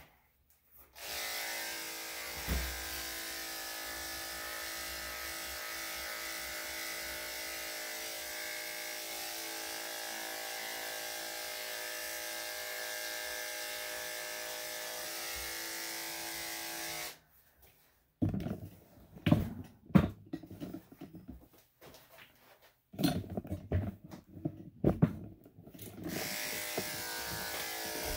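Electric dog-grooming clippers running with a steady hum, then cut off about two-thirds of the way through. After a short pause come several seconds of irregular knocks and bumps, louder than the clippers, before the clippers run again near the end.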